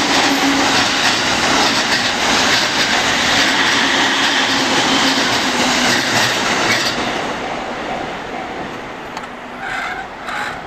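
Electric commuter train passing close by: a steady, loud rush of wheel and rail noise that starts to fade about seven seconds in as the train goes by.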